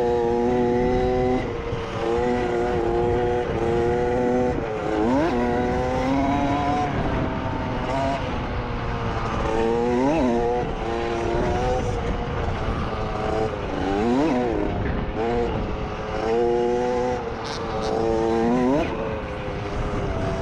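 Two-stroke KTM 50 dirt bike engine run hard at high revs. The throttle is chopped and reopened several times, so the pitch dips sharply and climbs back each time.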